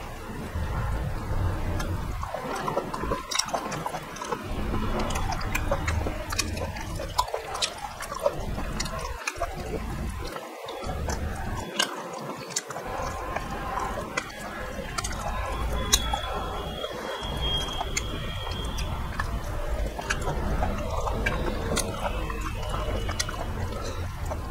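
Close-up wet chewing and lip-smacking of a person eating chicken in gravy by hand, with many small sticky clicks and squelches of meat being pulled apart.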